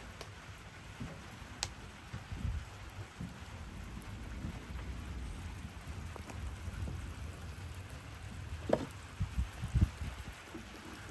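Steady rain falling during a thunderstorm, with low thunder rumbles. A few short low thumps come near the end.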